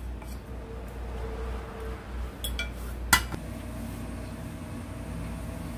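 Glass clinking against a stainless steel cooking pot: a faint clink about two and a half seconds in and one sharp clink just after, over a low steady hum.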